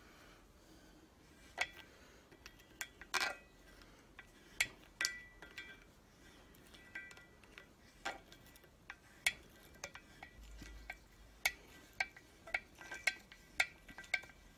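Irregular light metal clinks and taps, some with a short ring, from a steel socket and hand tools knocking against a lorry's front wheel hub and brake drum as they are set up.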